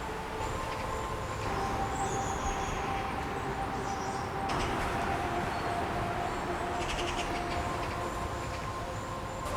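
Woodland ambience of rustling leaves with a few short high bird chirps, over several steady held notes made by tuning the recorded forest sounds into a drone; a new, higher held note enters about a second and a half in.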